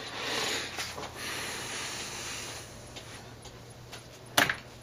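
Rustling and shuffling of things on a workbench, then a single sharp click about four and a half seconds in, over a steady low hum.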